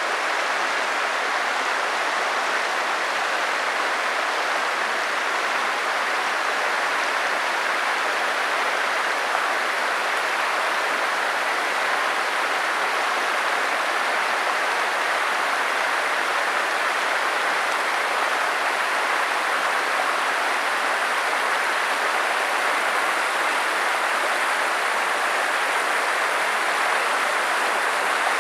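Stream water rushing steadily, an even hiss with no breaks.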